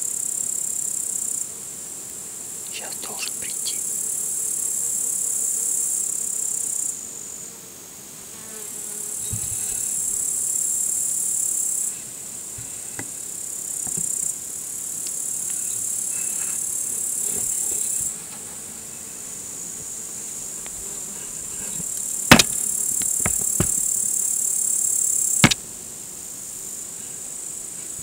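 Crickets chirring in a steady high-pitched chorus that stops and starts abruptly several times, with two sharp knocks near the end.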